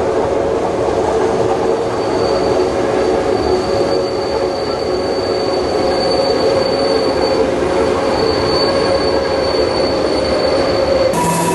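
Historic Bernina Railway train rolling through a tight curve, its wheels squealing a thin, high, steady note from about two seconds in over the running noise.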